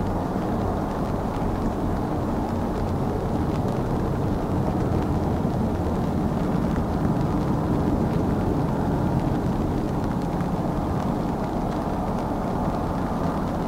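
Ilyushin Il-18's four Ivchenko AI-20 turboprop engines and propellers on final approach, a steady low drone that swells slightly midway.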